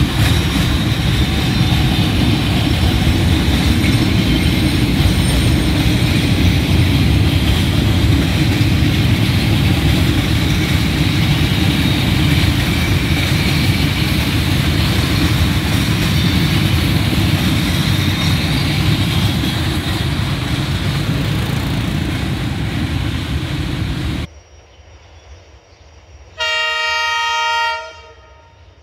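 Freight train's boxcars rolling past close by: a loud, steady noise of steel wheels on the rails that stops abruptly. A little later a train horn sounds once, for about a second and a half.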